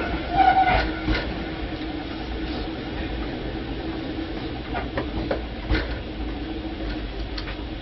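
Cabin sound of a Tobu 5050 series electric train, a car with nose-suspended traction motors on 1958 running gear: a steady low hum with a constant tone over it and a few sharp clicks and knocks here and there.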